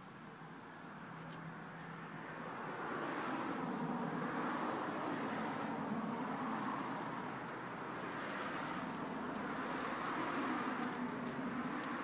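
Road traffic going by: a steady rush of car noise that swells a couple of seconds in, eases off past the middle and builds again near the end. A short high-pitched tone sounds about a second in.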